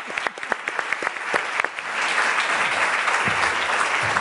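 Audience applauding: separate claps at first, thickening into dense, steady applause about halfway through.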